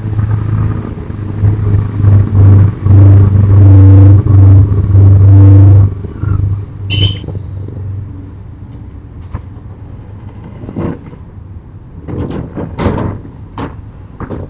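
A truck's engine runs with a heavy low rumble, then fades out about six seconds in. A short high squeal follows, then a string of sharp knocks and clatters.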